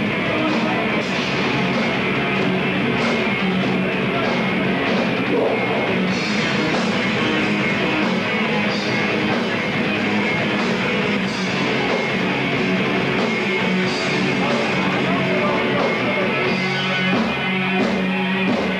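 Gothic metal band playing live: electric guitar and drums in a dense full-band sound that does not let up.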